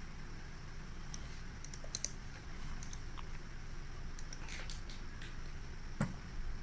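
Scattered faint clicks and taps from working a computer's keyboard and mouse, with one sharper click near the end, over a low steady hum.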